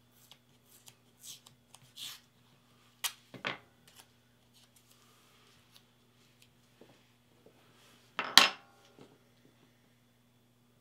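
Painter's tape and a craft knife being handled: a few short rasps and clicks as a small strip of tape is pulled from the roll, cut and pressed down. The loudest comes about eight seconds in, over a faint steady hum.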